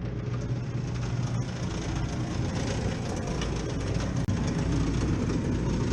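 Steady low machine drone with a constant hum under a wash of noise.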